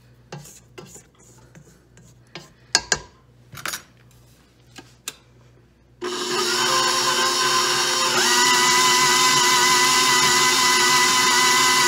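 A spatula scrapes and taps against a steel mixing bowl in scattered clicks. About halfway through, an old KitchenAid stand mixer switches on with a steady motor whine, and its pitch steps up about two seconds later as the dough hook kneads stiff pie dough.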